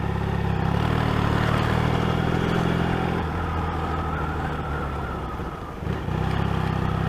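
Motorcycle engine running under a rider on the road, heard from the rider's position; the engine note eases off for a few seconds in the middle, then picks up again about six seconds in.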